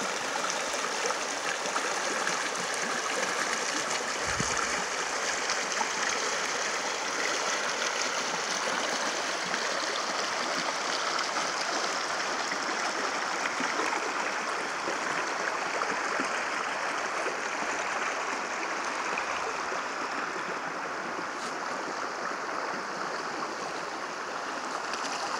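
Shallow river water flowing and rippling over gravel, a steady rushing sound.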